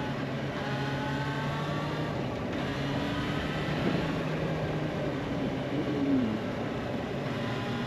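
Motorcycle engine running steadily while riding, its pitch stepping up or down a few times.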